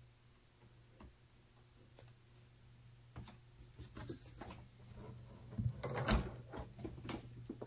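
Handling noise as the recording phone is picked up and moved: scattered clicks, knocks and rubbing on the microphone that grow louder and more frequent from about three seconds in, over a faint steady low hum.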